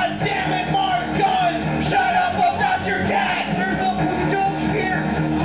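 Amplified rock song with a man singing loudly into a handheld microphone over a fast, steady backing.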